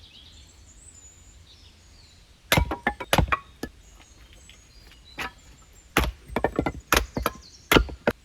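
Sharp knocks and clacks in irregular clusters, starting about two and a half seconds in, from hand work at the camp. A few faint bird chirps come in the first second or so.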